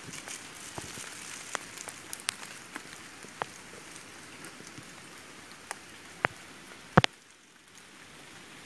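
Rain pattering steadily, with scattered sharp taps close by and a louder double tap about seven seconds in.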